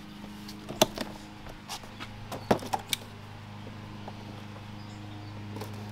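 A few short, sharp clicks and knocks as a cardboard shipping box is handled and its tape slit open, over a steady low hum.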